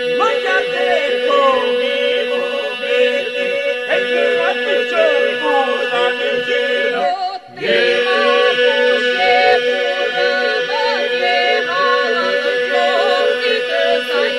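Albanian folk song: voices singing a bending melody over a steady held drone, breaking off briefly about seven and a half seconds in before resuming.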